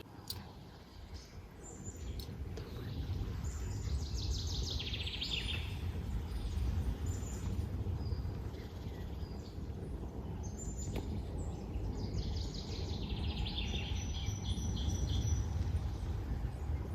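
Songbirds singing in woodland: two trilling phrases, the first falling in pitch, about four seconds in and again about twelve seconds in, over a low steady rumble.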